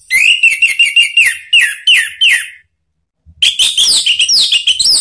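Orange-headed thrush singing loud song: a fast run of sharp, falling whistled notes lasting about two and a half seconds, a short pause, then a second quick phrase of falling notes.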